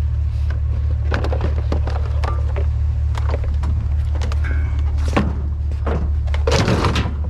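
Knocks, clatter and thuds from curbside scrap being handled, with a louder rattling burst near the end, over a steady low hum from an idling truck engine.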